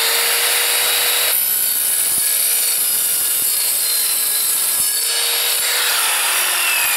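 Evolution R210SMS sliding mitre saw with its multi-purpose blade running at speed, then cutting through a metal shelving bracket from about a second in until about five seconds in. The blade then spins free and begins to wind down, with a falling whine near the end.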